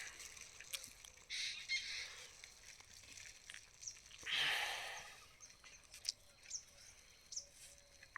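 Faint bird chirps, short and high, in the open air. Two brief, louder rustling noises come about a second and a half in and again about four and a half seconds in.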